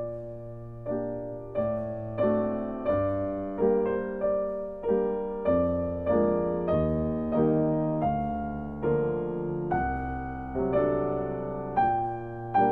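Slow piano background music. A note or chord is struck about every two-thirds of a second and each is left to ring and fade.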